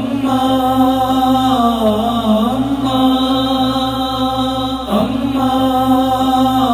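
Wordless vocal chorus of a noha chanting a slow, mournful melody in long held phrases over a low drone, with new phrases starting about three seconds in and again about five seconds in.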